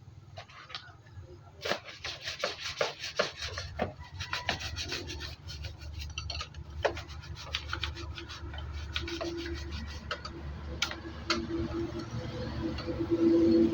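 Rubbing and scraping, with a quick run of clicks and ticks from about two to five seconds in, over a low steady hum.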